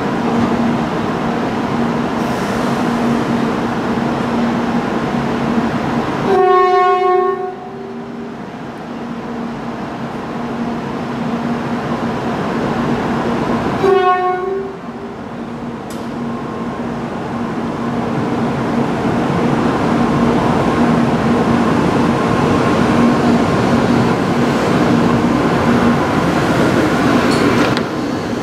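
N700-series Shinkansen train sounding two short blasts on its horn, about seven seconds apart, a courtesy horn given by the driver as it leaves. After the second blast the train pulls out, and its running noise builds steadily as the cars pass.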